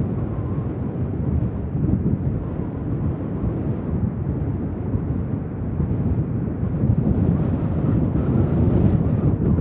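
Steady low rumble of several Lockheed Martin C-130J Super Hercules transports' Rolls-Royce AE 2100D3 turboprop engines as the aircraft taxi in line.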